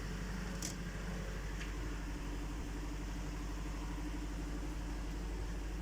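Engine idling steadily, an engine said to be knocking.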